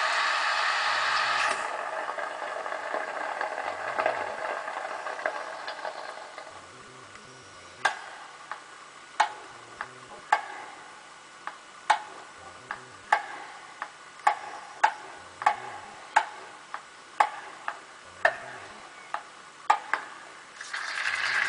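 Sony Rolly playing its built-in sound effects through its small speakers. First a rain hiss that fades out over the first six or seven seconds. Then, from about eight seconds in, a tennis-rally effect: sharp ball-hit knocks with a short ring, roughly one a second. A new, louder sound starts right at the end.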